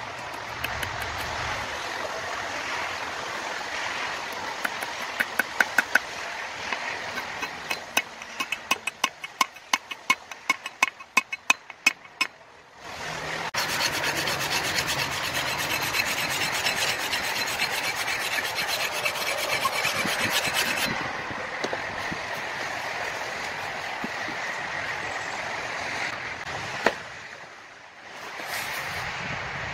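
A metal file rasping across the edge of a hewing hatchet's steel head clamped in a vise, sharpening the bevel. It runs steadily for several seconds after a run of sharp clicks and taps, and a single knock comes near the end.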